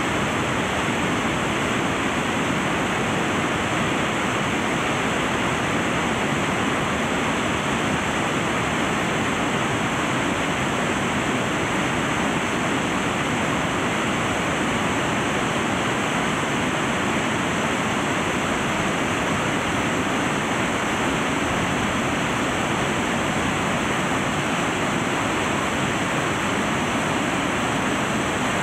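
Whitewater of a mountain stream cascading over boulders and small falls: a loud, steady rush of water that does not change.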